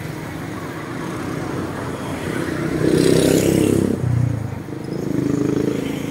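Motor vehicle engines passing close by, the loudest about three seconds in, with another rising and fading near the end over a steady traffic hum.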